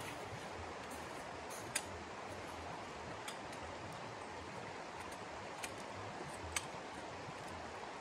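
Steady outdoor rushing noise, with a few sharp clicks; the two loudest come about two seconds in and at six and a half seconds.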